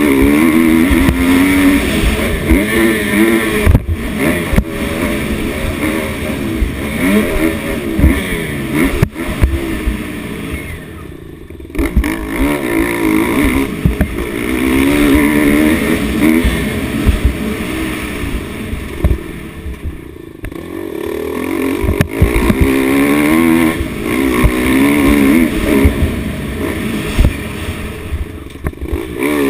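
Dirt bike engine being ridden hard, its revs rising and falling continuously, heard from a camera mounted on the bike. The throttle eases off briefly about eleven seconds in and again around twenty seconds, and a few sharp knocks come through from the bike over the rough track.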